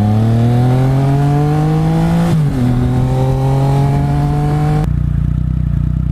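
Triumph Speed Triple 1050's inline three-cylinder engine accelerating hard from a stop, pitch rising. The pitch drops sharply about two and a half seconds in at an upshift, then climbs again. Just before five seconds in the throttle is rolled off, and the engine settles to a steady low rumble as the bike slows.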